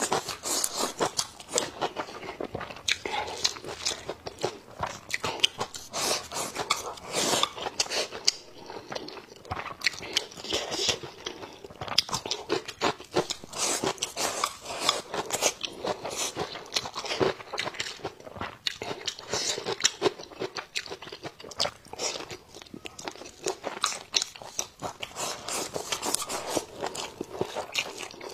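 A person eating close to the microphone, biting and chewing at a braised pig's trotter: a continuous run of short clicks, smacks and crunches.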